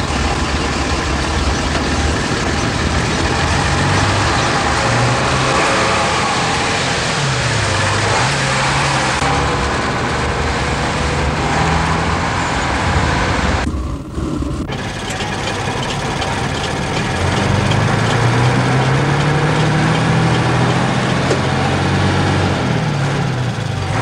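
Mercedes-Benz minibus engine running on the move, its pitch rising and falling as it speeds up and slows, over steady road noise; the sound dips briefly about fourteen seconds in.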